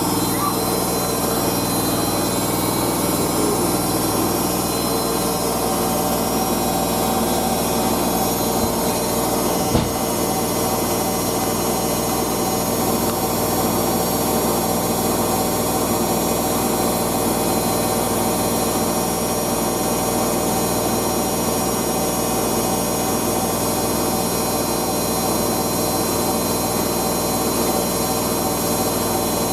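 Hoover DYN9144D3X washing machine drum spinning a load of towels at high speed in its final spin, a steady whine and rumble. One short knock about ten seconds in.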